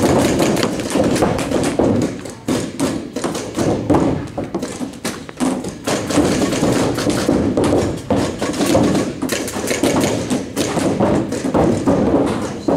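Paintball markers firing in rapid strings, with paintballs smacking into inflatable bunkers and netting: a dense, continuous run of quick pops and thuds.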